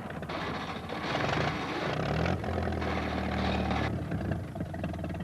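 Tractor engine revving hard in two surges as the tractor sits stuck in the mud, then dropping back to a steadier chugging run near the end.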